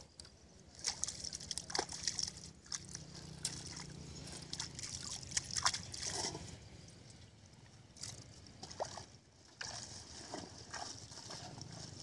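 Shallow water sloshing and splashing around a person wading and groping through water hyacinth, with scattered small clicks and knocks.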